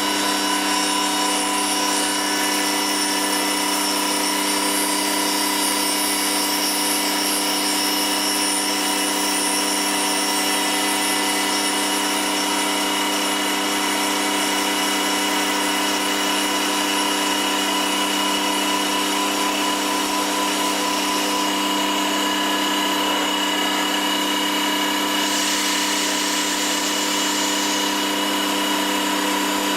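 CNC woodworking machine running a woodworking cutter: a steady machine hum made of several fixed tones. A hiss joins in for about two seconds near the end.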